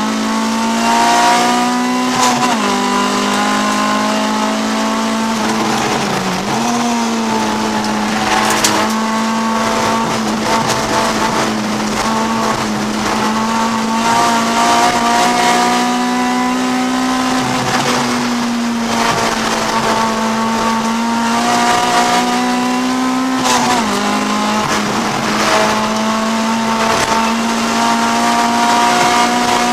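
Honda CRX's B20 VTEC four-cylinder engine running at high revs under racing load, heard inside the cabin, with its pitch dropping briefly about four times before climbing again.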